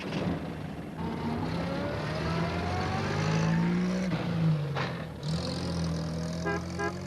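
Pat's small red post van engine pulling away and accelerating, its pitch climbing, then dropping about four seconds in as it changes gear, and settling to a steady run.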